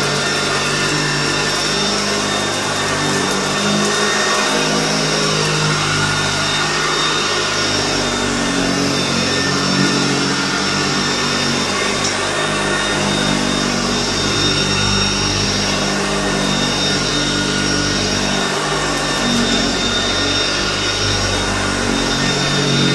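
Upright vacuum cleaner (1967 Hoover Junior 1334E) running steadily with its motor and beater-bar brush roll going. A steady high whine sits over a low hum that shifts in pitch from time to time. The motor has fresh carbon brushes and greased bearings, and the owner says it now sounds much healthier.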